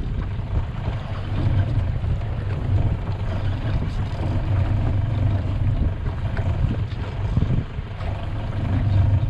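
Mercury outboard motor idling with a steady low rumble on a small fishing boat, with faint wind and water noise above it.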